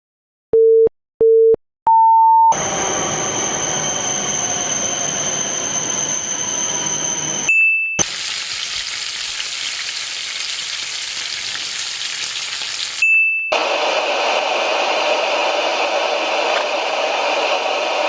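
Electronic countdown beeps, two low and one higher, then three different steady, hissing sound clips of about five seconds each, divided by short high beeps.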